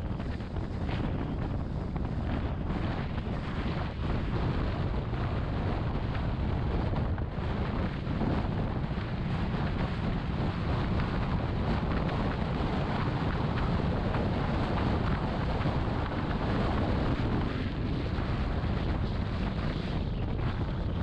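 Steady wind rush buffeting the microphone of a moving car, over a low rumble of road noise.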